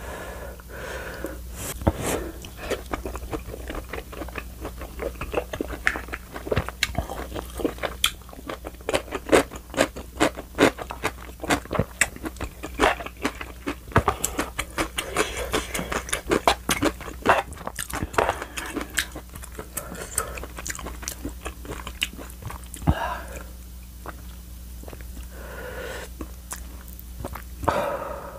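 Close-miked chewing of rose-sauce tteokbokki rice cakes: dense wet smacking and clicking mouth sounds, with a few louder mouth sounds near the end.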